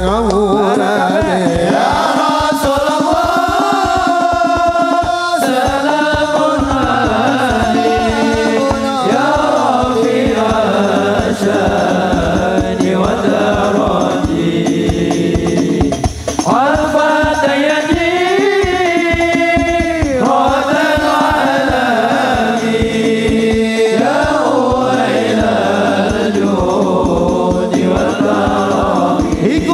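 A male voice singing an Islamic devotional song (sholawat) into a microphone, heard through a loudspeaker system, over a fast, steady percussion beat.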